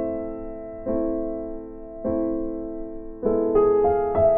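Background piano music: sustained chords struck every second or so, each left to ring and fade, with a quicker run of notes near the end.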